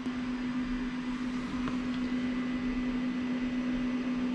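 Faulty computer power supply just switched on, giving a steady low electrical hum with a hiss over it, a little louder about a second in. The unit is burnt inside and smokes when powered.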